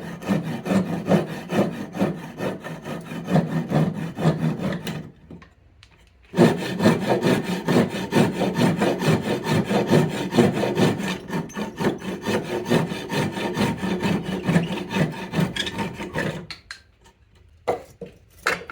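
Hand saw cutting through a softwood 2x4 blank in quick back-and-forth strokes, pausing for about a second, then sawing on. It stops shortly before the end, and a couple of light knocks follow.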